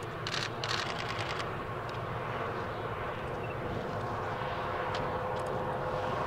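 Bombardier Global 6000 business jet's Rolls-Royce BR710 turbofans running during the landing roll-out, a steady rumble with a faint whine that grows a little louder near the end.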